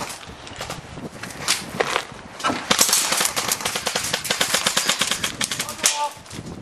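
Airsoft guns firing: a few separate shots, then a long, rapid full-auto string of sharp clicks lasting about three seconds.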